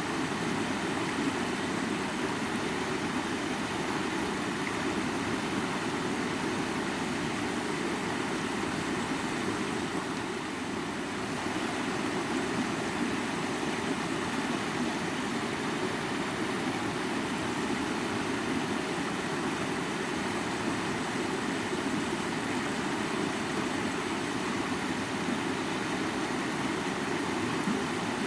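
Mountain river flowing: a steady, unbroken rush of water, heaviest in its low rumble, easing slightly about ten seconds in.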